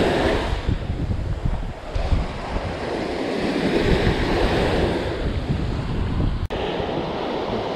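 Small surf breaking and washing up over the sand at the water's edge, with wind buffeting the microphone.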